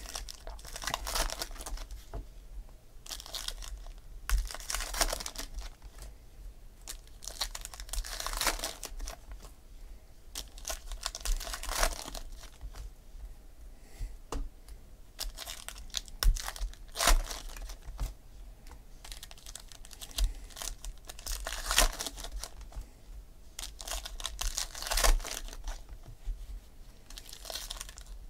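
2016 Topps Gold Label baseball cards being sorted by hand and dealt onto stacks, with foil pack wrappers crinkling and tearing open: short rustling and scraping sounds every second or two.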